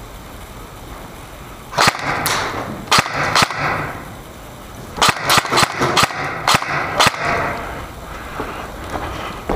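Airsoft guns firing single shots as sharp cracks: four shots, a pause of about a second and a half, then six more in quick succession.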